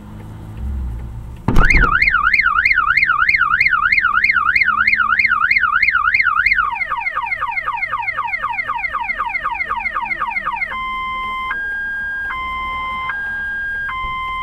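Car alarm siren sounding with a sudden start about a second and a half in. It runs through its programme: a fast up-and-down warble, then quick repeated falling sweeps, then a slower two-tone high-low alternation.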